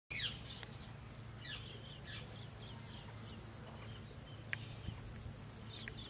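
Birds chirping, short high calls scattered irregularly, over a steady low hum, with a high hiss that comes and goes.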